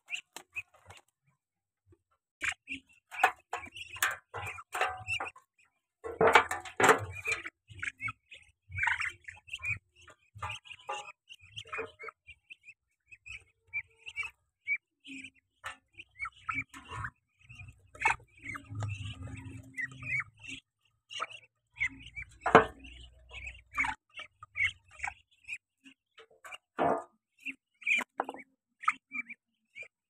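Young Muscovy ducks calling: short, high chirping peeps scattered irregularly, with a few louder, noisier bursts about 3, 6 and 22 seconds in.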